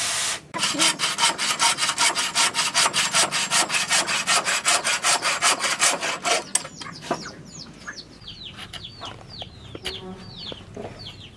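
Bow saw cutting through a thick wooden beam in rapid, even strokes, stopping about six and a half seconds in. After that comes quieter handling of the wood, with a run of high, falling chirps.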